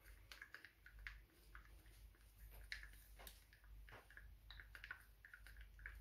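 Faint, irregular small clicks and scrapes of a stir stick working acrylic paint and Floetrol in a cup to make cell activator.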